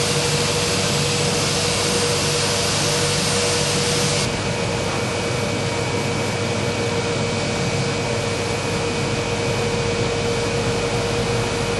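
Workshop dust extraction system running steadily with a constant hum. A higher hiss over it, from power sanding, stops about four seconds in.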